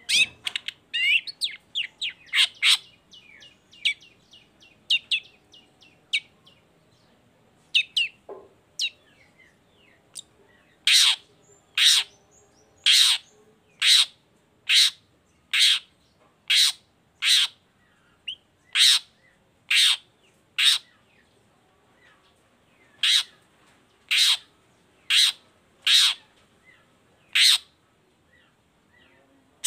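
Long-tailed shrike calling: quick chattering notes over the first few seconds, then a long run of loud, short, harsh calls about once a second, with two brief pauses.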